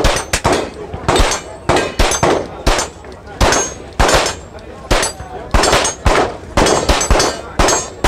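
Kel-Tec CP33 .22 LR pistol fired semi-automatically in a long string, roughly three shots a second. Many shots are followed by a short, high ping from steel targets being hit.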